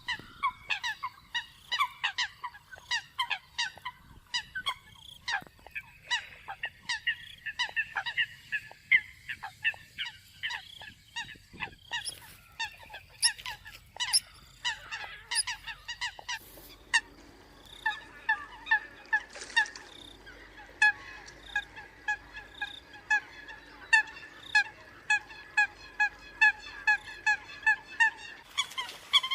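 Eurasian coots calling: a busy run of short, sharp, honking calls, several a second, which settles into a more even, regular series about seventeen seconds in.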